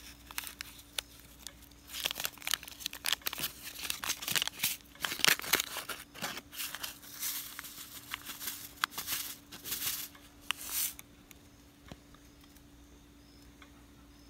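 A small foil seed pouch crinkling and tearing as it is opened by hand, in irregular rustling bursts that stop about eleven seconds in.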